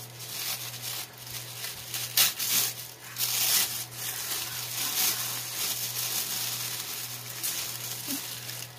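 Tissue paper rustling and crinkling as a wrapped gift is opened by hand, with a run of sharp crackles that are loudest about two to four seconds in.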